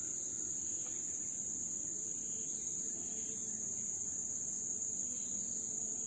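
Steady high-pitched drone of forest insects, running unbroken, over a low rumbling background hiss; no distinct bird call stands out.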